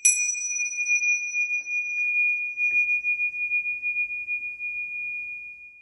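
Pair of Tibetan tingsha cymbals struck together once at the start, then ringing on as one clear high tone that wavers slightly. The higher overtones die away first, and the tone fades out near the end.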